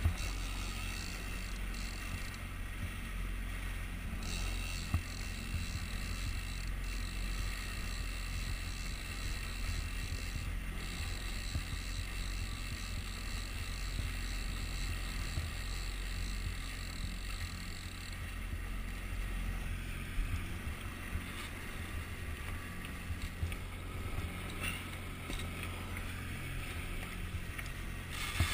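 Yamaha outboard motor running steadily at trolling speed, a low drone with a faint high whine, over the rush of water along the hull.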